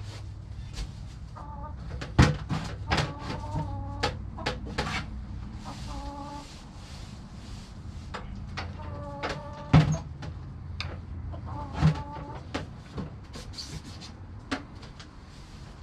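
Chickens clucking, with short repeated calls throughout. Several sharp knocks sound among them, the loudest about two, ten and twelve seconds in.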